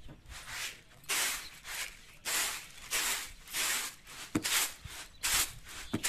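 Wheat being winnowed in a metal winnowing tray: the grain hisses and rattles each time it is tossed and caught, in a steady rhythm of one to two tosses a second, to clean it of husk and dust. A couple of sharp knocks come in the second half.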